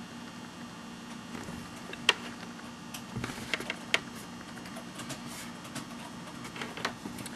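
Scattered light clicks and taps from a pair of Persol PO 3019S sunglasses being turned in the fingers, the frame and its metal hinges knocking softly, with the sharpest clicks about two and four seconds in. A faint steady hum runs underneath.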